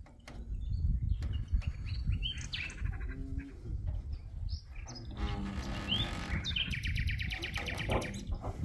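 Small birds chirping and calling, with a quick trill near the end, over a steady low rumble.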